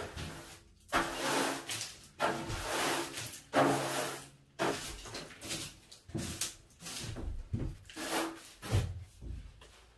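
Broom bristles scraping rat droppings and debris across the floor and seats, in repeated sweeping strokes about once a second.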